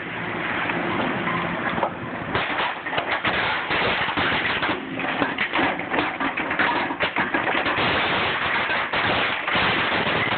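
Twin-shaft shredder running with a steady hum, then, from about two seconds in, its hooked cutters biting into a computer monitor's plastic casing: a rapid, irregular run of loud cracks and snaps.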